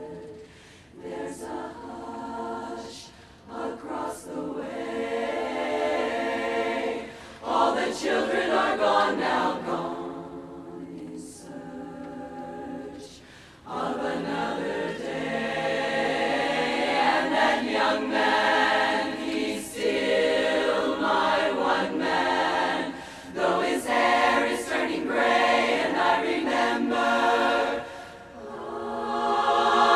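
Women's barbershop chorus singing a cappella in four-part harmony, in phrases broken by short pauses, growing louder near the end.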